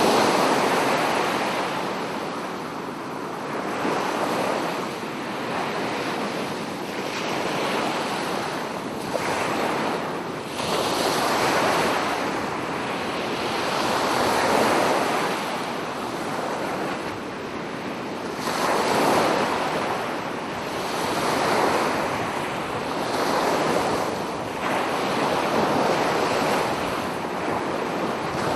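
Ocean waves breaking and washing up a beach: a continuous rush of surf that swells and falls every few seconds as each wave comes in.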